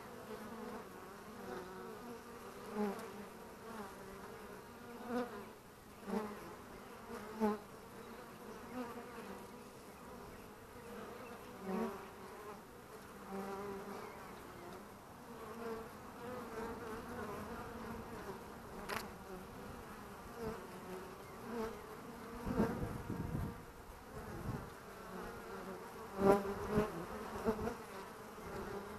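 Honeybees buzzing at a hive entrance: a steady hum of many wings, with single bees swelling loud as they fly close past, the loudest passes about two-thirds of the way through and again near the end. Foragers are flying in and out of the hive.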